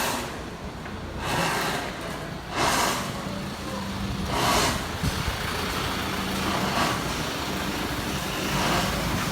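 Road traffic: a steady engine hum, with vehicles passing every second or two.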